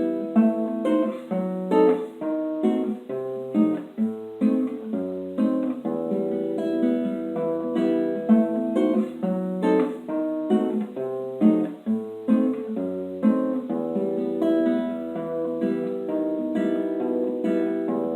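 Solo classical guitar playing a melodic piece: plucked notes over a moving bass line, with occasional louder strummed chords.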